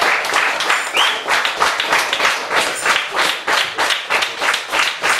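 Audience applauding, the clapping falling into a fairly regular beat of about two claps a second.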